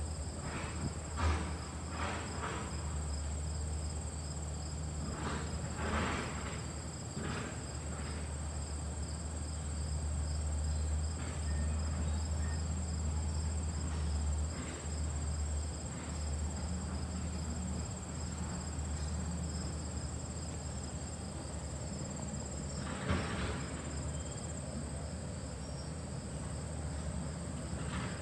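LG air-conditioner condenser unit with a newly replaced condenser fan motor, running steadily with a strong low hum. Insects chirp in a steady high pulsing trill over it, and a few light knocks come about a second in, about six seconds in and near the end.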